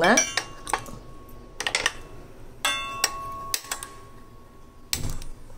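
Gas stove being switched on: a series of sharp clicks and metal clinks, with a steady thin high tone held for about two seconds in the middle.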